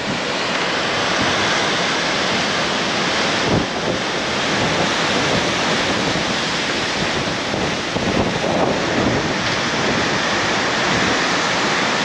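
Storm-force wind blowing in a steady, dense rush and buffeting the microphone.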